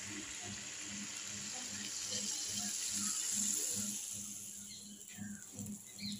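Hot oil sizzling as a poa pitha (rice-flour fritter) deep-fries in an iron karahi, a steady hiss that fades away after about four seconds. Underneath, a low hum pulses two or three times a second.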